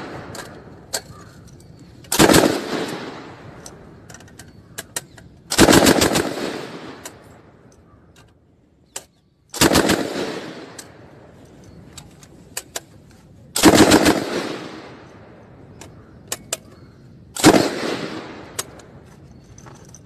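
A 7.62×51mm Bren L4 light machine gun firing five short bursts a few seconds apart. Each burst is a handful of rapid shots followed by a long fading echo, with faint clicks and knocks in between.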